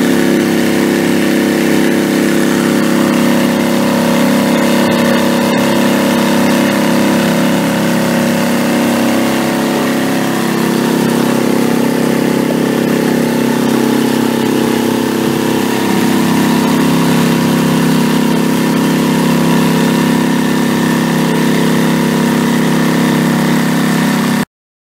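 Lehr 2.5 hp propane four-stroke outboard running steadily under way, pushing a canoe, with water rushing along the hull. It cuts off suddenly near the end.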